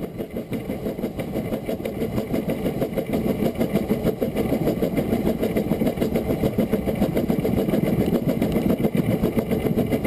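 Narrow-gauge steam locomotive Loch working as it gathers speed: a fast, steady beat of exhaust chuffs over the running rumble of the train. It grows a little louder over the first few seconds.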